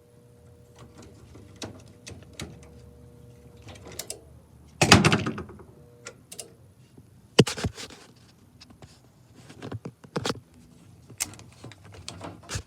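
Scattered clicks and knocks of hands handling metal parts and tools, with a louder clatter about five seconds in and a sharp knock a little later.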